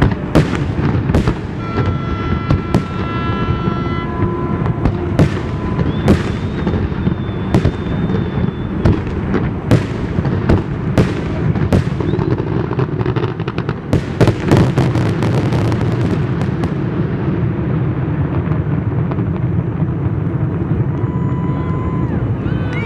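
Fireworks exploding in a string of sharp bangs about one a second, then a rapid volley of many bangs about fourteen seconds in. The bangs stop a couple of seconds later, leaving steady background noise.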